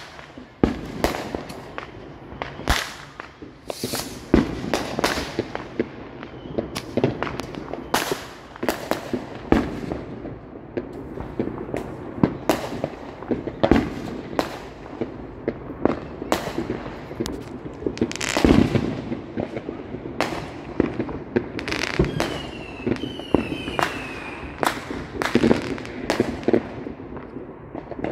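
Small aerial fireworks going off: an irregular run of bangs, pops and crackles of varying loudness, the loudest bang a little past halfway, with a few short falling whistles about three quarters of the way through.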